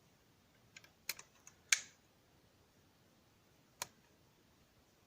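Scattered metallic clicks and ticks of a lock pick and tension wrench working the pin stacks of an Abus Pfaffenhain V14 padlock: a handful of short, sharp clicks, the loudest a little under two seconds in and another near four seconds.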